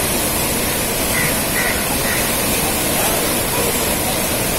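Water pouring through the open spillway gates of a large dam and crashing into the pool below: a steady, even rush.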